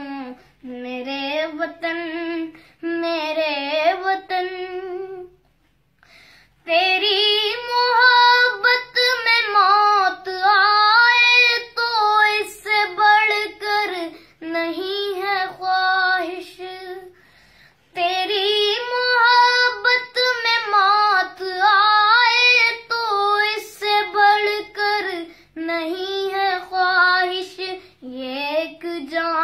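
A girl singing a song alone, with no instruments heard. She sings in long melodic phrases, with a short break about five seconds in and another about eighteen seconds in.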